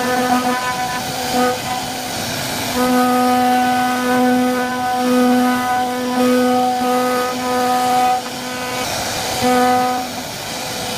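CNC wood carving router running, its spindle giving a steady whine with a hiss underneath; the whine swells, fades and cuts in and out in stretches of one to five seconds.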